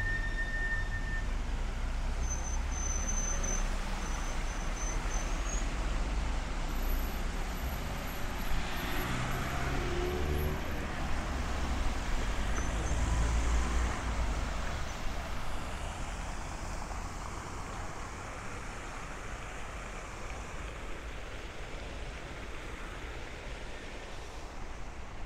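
Road traffic: cars driving around a roundabout, swelling as cars pass about a third of the way in and thinning to a quieter hum in the last third.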